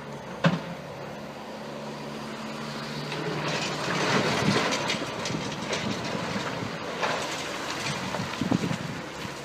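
A machine running steadily with a low hum, a sharp click about half a second in, then a louder rattling, scraping noise from about three and a half seconds in.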